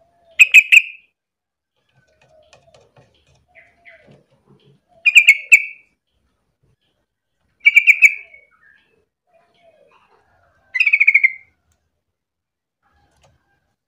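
Yellow-vented bulbul calling: four short, loud bubbling phrases a few seconds apart, each a quick run of notes. Fainter, lower calls come in between.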